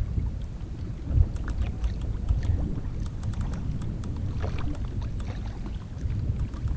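Wind rumbling on an action camera's microphone on a kayak at sea, with light irregular water splashes and lapping against the hull.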